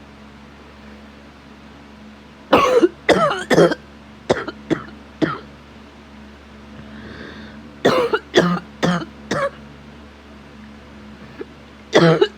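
A sick person coughing in fits. About two and a half seconds in comes a run of six or so coughs that grow weaker, then a run of four about eight seconds in, and a new fit begins near the end. It is a chest cough from an illness caught from a sick child, in a daily smoker with asthma whose chest sometimes burns.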